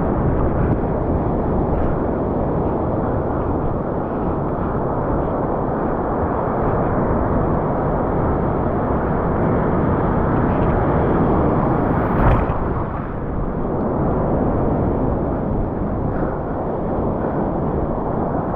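Steady rushing noise of sea surf and churning water, with one short, sharp knock about twelve seconds in.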